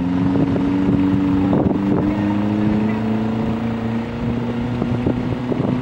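Off-road trial buggy's engine held at steady, moderate revs as it crawls over logs, its pitch creeping slightly upward and then holding, with a few short knocks.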